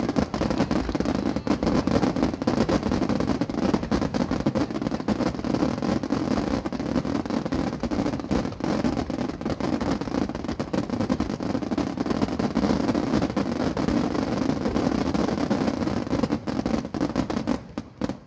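Fireworks finale barrage: a continuous rumbling roar of rapid shell launches and bursts, packed with crackling reports, thinning out near the end.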